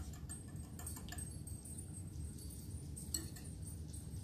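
Small wire whisk beating eggs in a small glass bowl: faint, scattered clinks of the wires against the glass, with a pair of clearer ticks about a second in and again about three seconds in.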